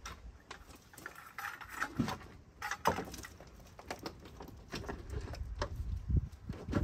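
Grey plastic folding dog ramp knocking and clicking as it is folded up, with scattered crunches of feet on gravel.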